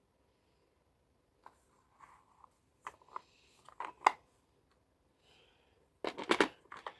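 Scattered clicks, taps and rustles of objects being handled, with a quick cluster of louder knocks near the end.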